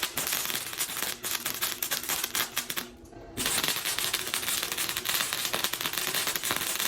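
Harbor Freight flux-core wire welder burning E71T-GS mild-steel wire, the arc crackling and popping in two runs with a brief break about three seconds in.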